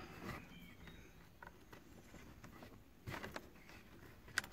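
Faint rustling and light scraping of a hand and speaker wire working down behind plastic dashboard trim, with a short run of scrapes about three seconds in and a sharp click near the end.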